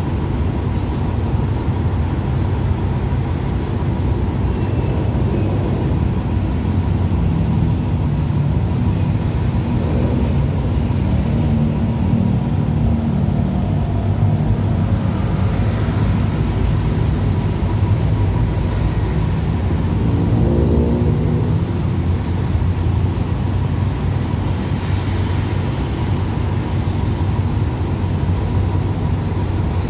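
Diesel-hauled passenger train standing at the platform with its engines running: a steady low rumble with a constant hum, and a brief rising engine note about twenty seconds in.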